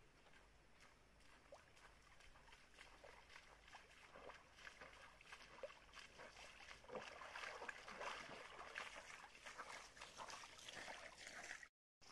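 Faint splashing of feet wading through a shallow, rocky stream, growing louder as the steps come closer, over a light trickle of flowing water. The sound cuts off abruptly just before the end.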